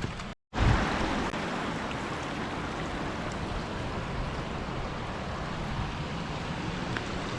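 Water from a small waterfall rushing steadily, after a brief dropout in the audio just under half a second in.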